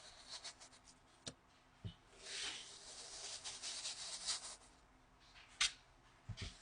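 Kinetic sand being cut with a knife and crumbling apart: a soft grainy crunching for about two seconds in the middle, with a few sharp taps before and after.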